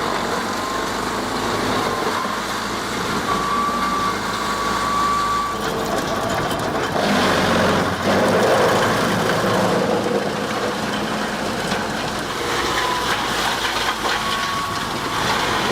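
Heavy machinery running steadily, with a thin high whine that comes and goes and a louder stretch about seven seconds in.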